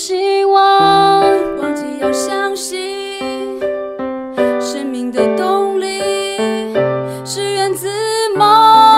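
Closing theme song with piano and keyboard playing a melody.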